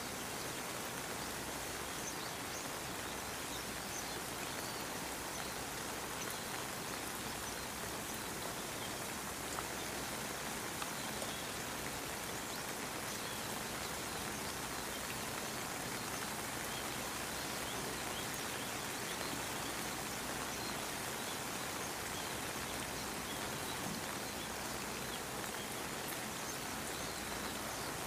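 Steady rain falling, with small drop ticks scattered through it.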